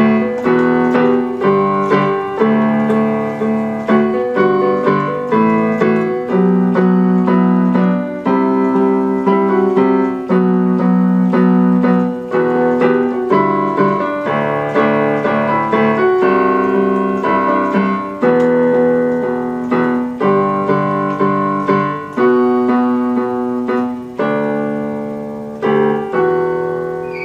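Electronic keyboard played by hand: a run of chords that change every second or so, fading out over the last few seconds.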